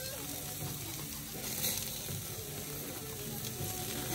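Hamburger patties sizzling on the hot grates of a gas grill, a steady hiss.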